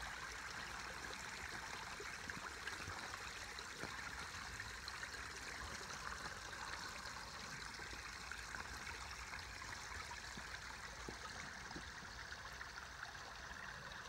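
Stacked-stone waterfall of a backyard koi pond running steadily, its water trickling and splashing into the pond.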